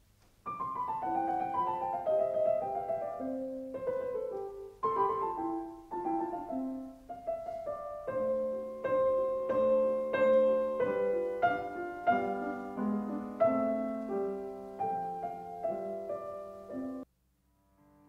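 Background solo piano music: notes played in descending runs, starting about half a second in and cutting off abruptly near the end.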